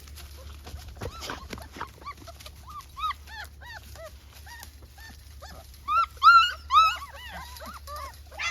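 Several little puppies whimpering and yelping in short, arching, high-pitched cries that overlap one another, loudest in a burst about six to seven seconds in. A few light clicks come about a second in.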